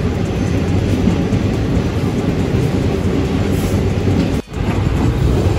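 A passenger carriage of a moving train, with a steady rumble from the wheels and carriage running along the track. The sound drops out for an instant about three-quarters of the way through.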